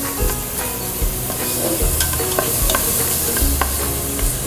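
Chopped onion and garlic sizzling in a little oil in a stainless-steel saucepan over medium heat, stirred with a spatula that taps and scrapes against the pan several times. The onion is being sautéed until fragrant and translucent.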